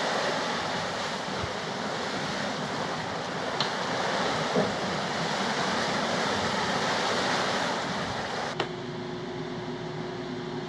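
Wind and sea noise on the open deck of a sailing catamaran under way, a steady rushing hiss. Near the end it cuts off suddenly to a quieter room with a steady low hum.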